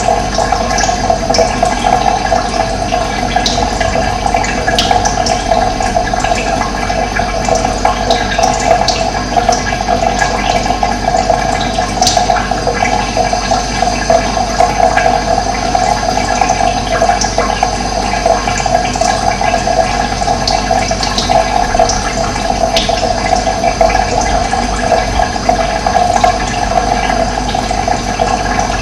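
Running water: a steady, even rushing flow, with short high bird calls dotted over it here and there.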